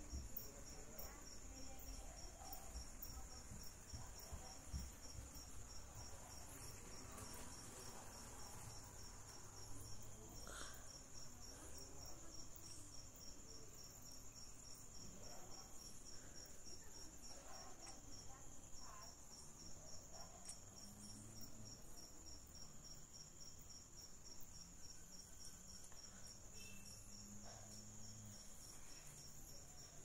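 Crickets trilling at night: one continuous, high, rapidly pulsed trill, faint and unbroken.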